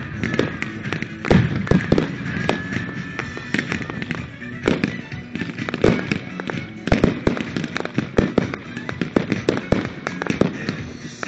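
Fireworks going off: an irregular, dense run of sharp bangs and pops from bursting shells and crackling comets, several a second. Disco music plays underneath.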